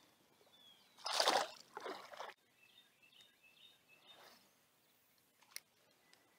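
Splash of a released largemouth bass dropped back into the water beside a kayak: a short burst of water noise about a second in, with a smaller one just after.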